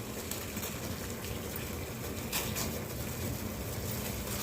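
Water at a full boil in a pan on the stove, a steady bubbling hiss.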